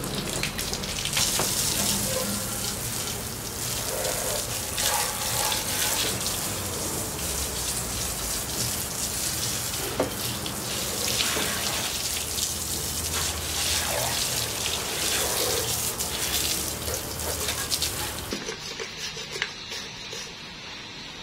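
Liquid spraying and splashing out of a leaking Liquid Controls M-7-1 flow meter under pump pressure: a steady hiss with a low hum underneath. It cuts off abruptly near the end.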